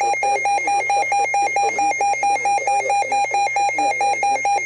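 Midland weather radio's alert alarm going off: a loud, rapid, evenly pulsing electronic beep. It signals that an emergency alert has just been received.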